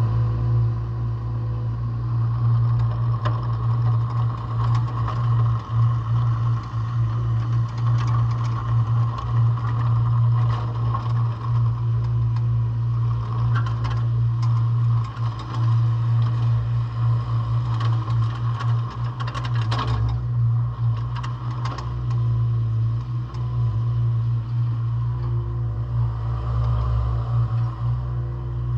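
Volvo EC18D mini excavator's diesel engine running steadily, with occasional rattles and knocks from the machine.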